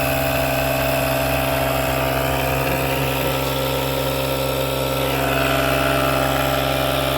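Tire sealant kit's electric air compressor, plugged into the car's power outlet, running steadily with a constant hum while it pumps sealant into a punctured tire.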